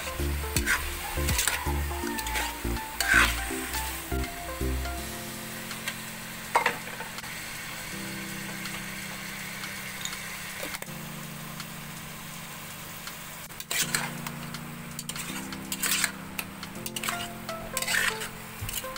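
Food sizzling in a hot pan while being stirred, with occasional taps and scrapes of the utensil against the pan. Background music with a changing bass line plays throughout.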